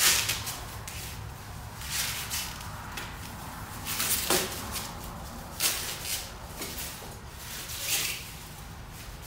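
Foam packing sheet rustling and crinkling as it is pulled off a rear spoiler, in short bursts every second or two.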